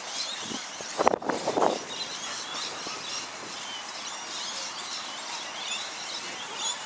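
Open-air ambience with many small birds chirping throughout. About a second in, a short loud cluster of several sharp calls stands out above it.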